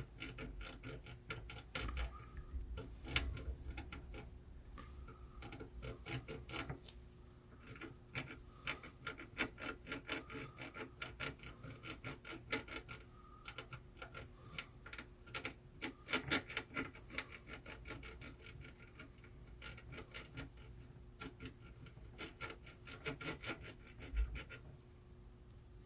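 Hand work on a PS5 at a repair bench: runs of small, quick dry clicks and scraping or scrubbing strokes, over a faint steady hum.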